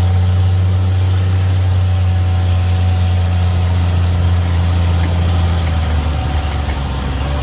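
Toyota FJ Cruiser's 4.0-litre V6 idling steadily, a deep even hum, during a winch recovery.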